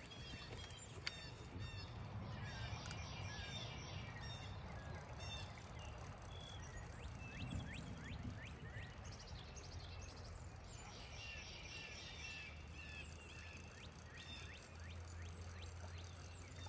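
Birds chirping and calling faintly, with two rapid trills, over a low steady rumble.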